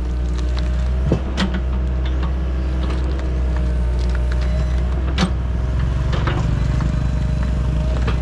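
Doosan DX55W wheeled excavator's diesel engine running steadily under work, with a faint steady whine and a few sharp knocks, about a second in and again about five seconds in.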